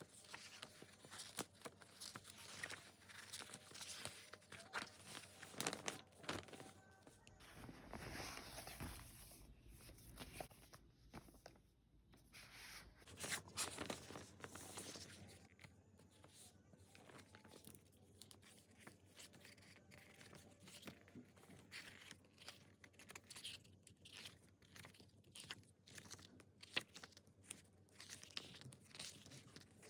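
Faint crinkling, tearing and rustling of album packaging being unwrapped and handled, with many small taps and clicks throughout.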